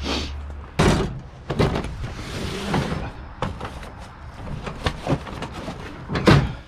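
A heavy box of scrap being handled: a series of knocks and scrapes, with the loudest thud near the end.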